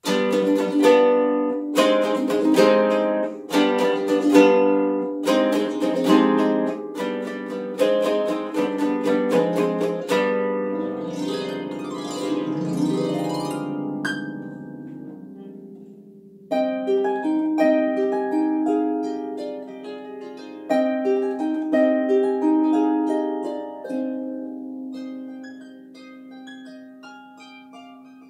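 Solo harp: strongly plucked chords in a steady beat, then a rising glissando up the strings that rings on, then a softer plucked melody over a held low note that fades toward the end.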